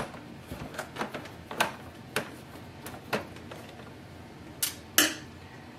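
A screwdriver backing out the small screw that holds the maintenance box in the plastic housing of an Epson EcoTank ET-2800 printer: light clicks about every half second, then two sharper clicks near the end.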